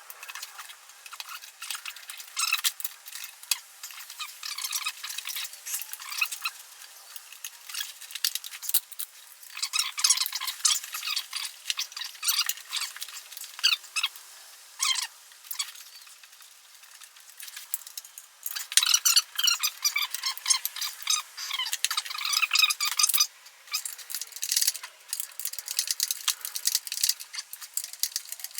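Irregular clicking, scraping and light rattling of engine parts being handled and fitted during reassembly of the upper intake plenum, with a quieter stretch a little past the middle.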